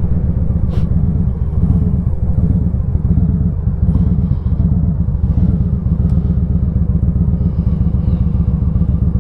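Victory Highball's V-twin engine running steadily while the motorcycle is ridden, heard from a helmet-mounted camera.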